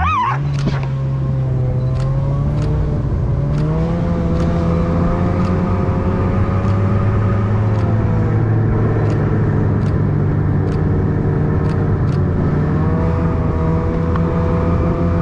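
A motor vehicle engine running steadily, its pitch rising and falling slightly as the revs change. A dog yelps once right at the start.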